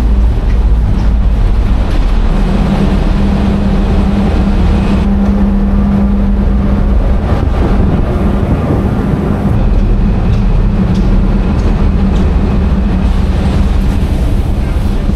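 A vehicle running steadily, with a continuous low engine drone and rumble.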